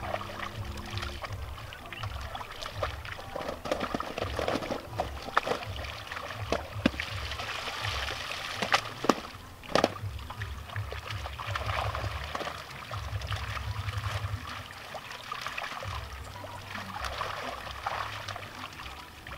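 Pond water sloshing and splashing as a seine net is gathered in by hand, with several sharp splashes, the loudest around the middle.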